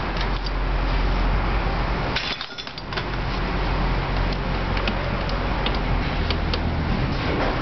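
Steady mechanical running noise with a constant low hum, dipping briefly about two and a half seconds in, with scattered light metallic clinks and taps over it.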